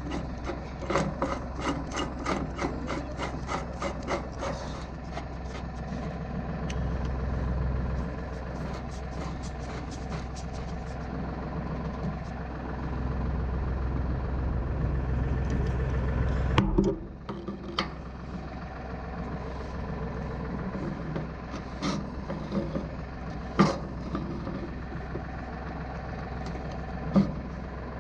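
Metal clicking and rasping as a pipe is threaded back into the diesel tank's fitting: a fast, even run of about five clicks a second for the first few seconds, another looser run a little later, then a sharp knock and a few scattered clunks in the second half.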